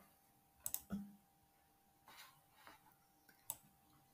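Faint computer mouse clicks, a few scattered single clicks over near-silent room tone.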